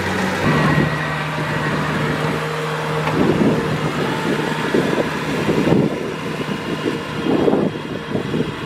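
Kubota DC-70 Plus combine harvester's diesel engine running steadily; its note steps up about half a second in. Irregular rattling from the machine comes and goes over it.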